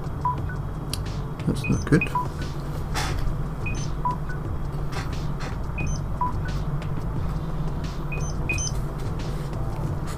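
Background music made of short, high beeping notes at several pitches in an uneven pattern, over a steady low hum.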